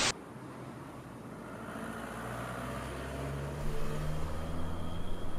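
City traffic rumble, with a vehicle engine's low hum building up over the last few seconds.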